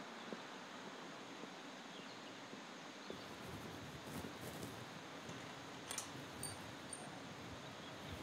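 Faint rural outdoor ambience: a steady background hiss with a few faint ticks. About three seconds in, a low rumble is added, and a couple of brief high chirps come near the end.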